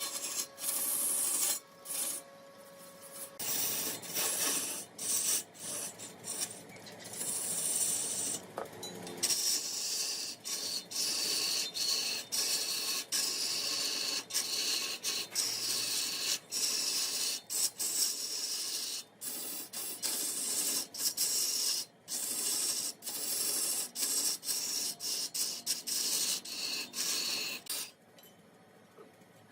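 Wood being shaped on a lathe: a rasping, scraping noise in uneven strokes with many short breaks, dropping away near the end.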